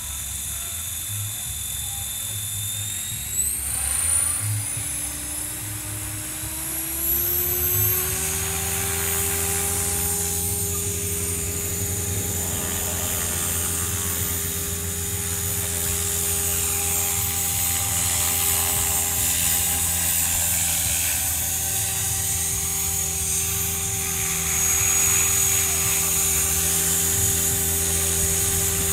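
Align T-Rex 500 electric RC helicopter spooling up: the motor whine and rotor tone climb in pitch from about three seconds in to about eight seconds in, then hold steady as it flies.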